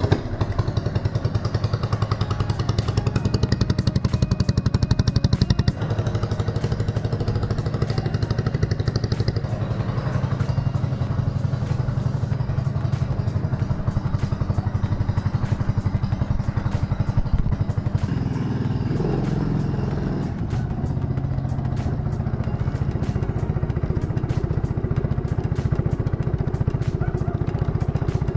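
Lawn mower engine fitted to a homemade go-kart running steadily, a fast even beat of firing pulses; it gets a little quieter about six seconds in.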